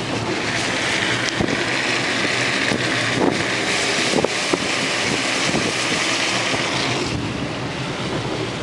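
Car driving on a wet road in the rain: a steady hiss of tyres and rushing wind, with a few light knocks, that lessens about seven seconds in.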